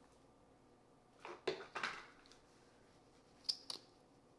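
Faint handling sounds of makeup being applied: a few brief rustles about a second and a half in, then two quick clicks near the end.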